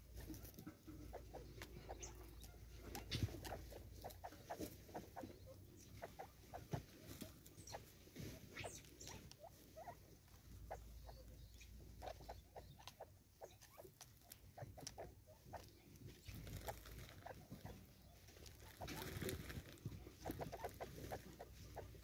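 Francolins pecking seed off a wooden stump: many faint, irregular taps and clicks of beaks and feet, with a brief stretch of rustling near the end.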